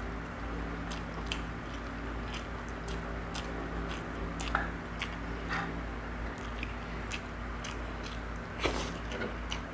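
Close-up eating noises: small wet clicks and smacks of chewing and of fingers picking at braised fish and greens, with a louder smack about nine seconds in as a handful goes into the mouth. A steady low hum runs underneath.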